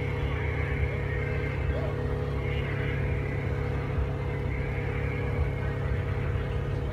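Ferrari F430's V8 engine idling steadily.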